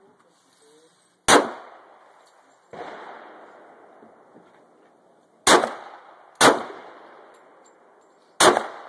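Glock 17 9mm pistol firing single shots close by: one about a second in, two about a second apart in the middle, and one near the end, each followed by a short echoing tail. A fainter shot comes about three seconds in.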